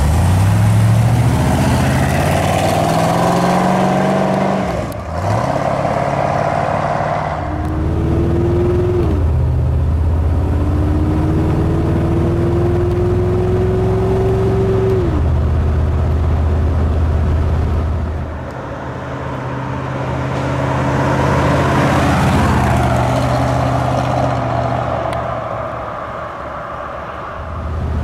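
1972 Corvette Stingray's 350 V8 driving and accelerating: the engine note climbs and drops back several times as the automatic transmission shifts up, then runs steadily at cruising speed.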